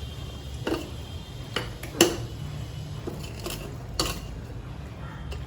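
A cooking spoon knocking and clinking against a pan as boiled penne is added to white sauce: about six sharp knocks at uneven gaps, the loudest about two seconds in. A steady low hum runs underneath.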